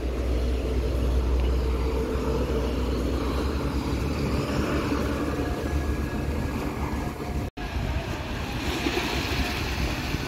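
Road traffic going by, with a deep low rumble that eases off after the first few seconds. The sound cuts out for an instant about three-quarters of the way through.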